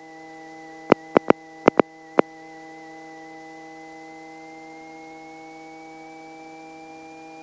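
Steady electrical hum with a thin high whine that rises slowly in pitch, from the Robinson R44's cockpit electrics before the engine is started. A quick run of about six sharp clicks, like switches being set, comes in the first two and a half seconds.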